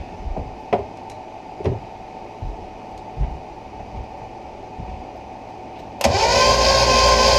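A few scattered knocks and clicks, then about six seconds in a starter motor kicks in. It cranks the small-block Chevy 350 inboard with all its spark plugs out, so the engine spins freely, and the sound whines up quickly and holds a loud, steady pitch.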